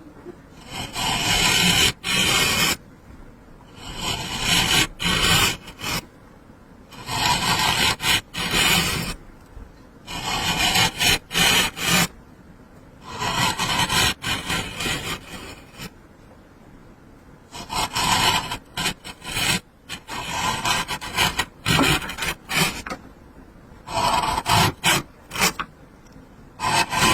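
A hand tool scraping and shaving across wood in repeated working strokes: about nine rough, rasping bouts roughly every three seconds, with short pauses between them.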